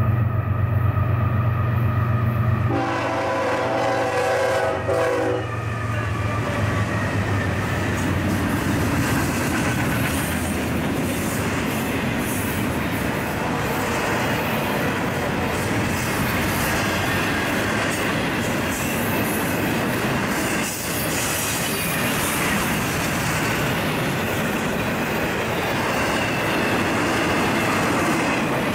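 Freight train's diesel locomotives passing close by with their engines running, and a multi-note horn sounding for about three seconds a few seconds in. Then double-stack container cars roll past with a steady noise of wheels on rail.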